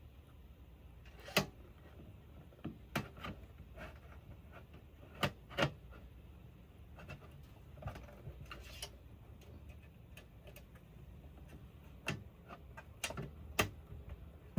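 Irregular sharp clicks and light knocks of an oscilloscope's parts being handled and fitted back together during reassembly, over a faint steady low hum.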